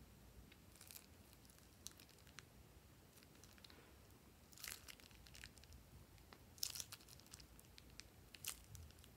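Faint crinkling of a soft plastic piping bag being squeezed in the hand, a few short crackle clusters with soft clicks between, the loudest about two thirds of the way through.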